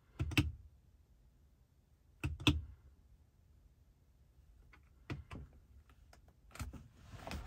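BMW iDrive controller knob being pressed and turned to step through the dashboard menus. It gives short sharp clicks, often in pairs, every two to three seconds, and clicks more often near the end.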